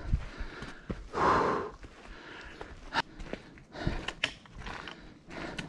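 A hiker breathing hard while climbing under a heavy backpack, with one loud exhale about a second in, and scattered footsteps and clicks on the trail.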